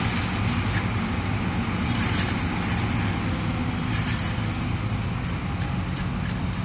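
Diesel engine of heavy construction machinery running steadily, with a few faint clicks and knocks.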